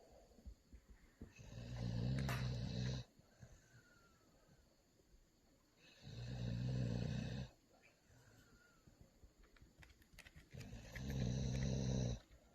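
Loud snoring from a deep sleeper: three long rasping snores, each about a second and a half, coming roughly every four and a half seconds with quiet breathing in between.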